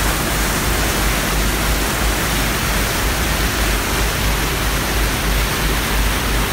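Churning propeller wash in a passenger boat's wake: a loud, steady rushing of foaming water with a strong low rumble underneath.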